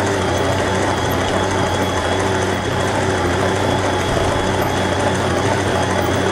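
Electric stand mixer running steadily at low speed, its dough hook kneading pizza dough in a steel bowl.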